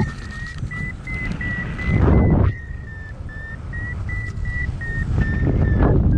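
A paragliding variometer beeping rapidly at a high pitch, about three beeps a second, with the pitch drifting slightly up and down: its climb tone, signalling the glider is rising in lift. Wind rushes on the microphone throughout, with a loud gust about two seconds in.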